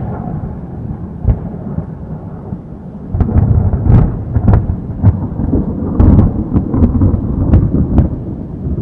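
Thunderstorm: low rumbling thunder with rain, and many sharp cracks and pops over it. It grows louder about three seconds in.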